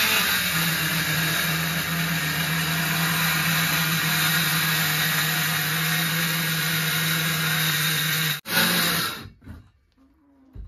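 Cordless Ryobi oscillating multi-tool plunge-cutting through a plywood wall, a loud steady drone with a constant low hum. It stops about eight seconds in, runs again for under a second, then cuts off.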